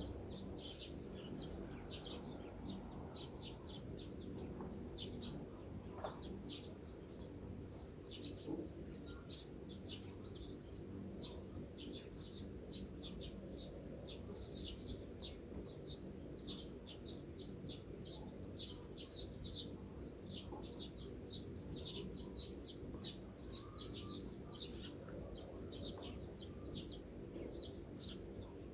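Many birds chirping continuously in quick, short high calls, over a low steady background rumble.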